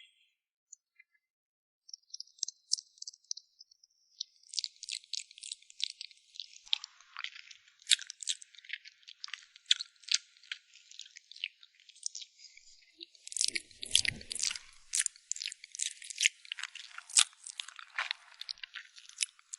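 Close-miked ASMR chewing of a crunchy dessert: rapid crisp crackles that start a couple of seconds in, thicken soon after and grow louder about two-thirds of the way through, with a brief low thump at that point.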